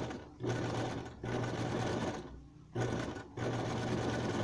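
Electric household sewing machine running a zigzag stitch in short runs, its motor starting and stopping four or five times under the foot pedal, with the longest pause about two and a half seconds in.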